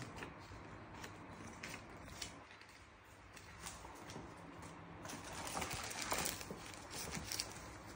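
Thin plastic wrapping crinkling and rustling as a boxed router is handled inside it, with scattered small clicks and taps; the crinkling gets louder about five seconds in.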